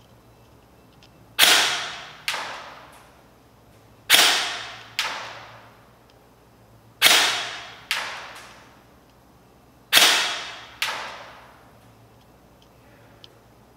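Airsoft designated marksman rifle firing single shots: four sharp cracks about three seconds apart, each with a long echoing tail. Each is followed just under a second later by a second, fainter crack.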